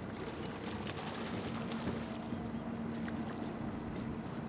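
Boat's outboard motor running at trolling speed, a steady hum, under wind and water noise.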